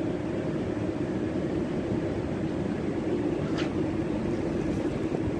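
Steady urban background noise: a constant low rumble with a hum, without change, and one faint brief tick about three and a half seconds in.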